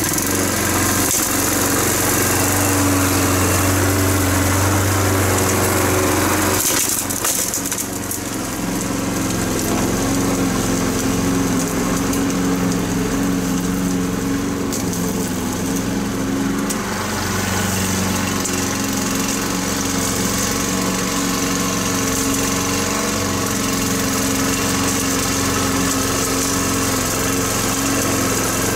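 Walk-behind lawn mower's small petrol engine running steadily under load. Its note drops slightly about seven seconds in, then holds.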